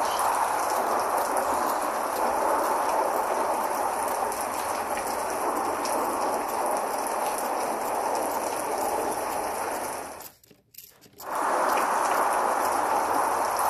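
Steady rain falling, an even hiss with faint ticks of drops; it cuts out for about a second near the end, then carries on.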